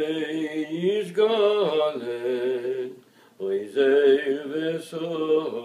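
A man singing a slow melody in long held notes. The singing breaks off briefly about three seconds in, then goes on.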